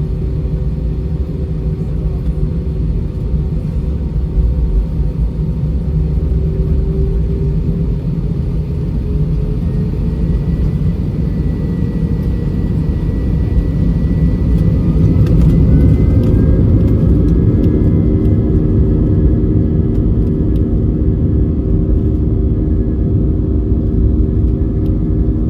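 Airbus A320's IAE V2500 turbofan engines at takeoff thrust, heard from inside the cabin over a heavy, steady rumble. The engine tones slowly rise in pitch through the middle and then hold steady.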